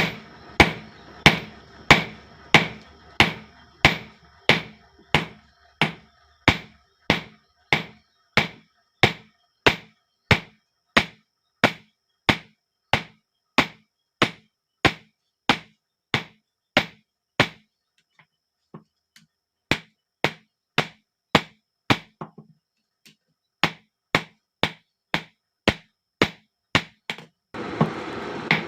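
Hammer blows on hot steel over an anvil, forging a knife blade in a steady rhythm of about one and a half strikes a second. Each blow is sharp and rings briefly. Past the middle the hammering stops for about two seconds, then carries on.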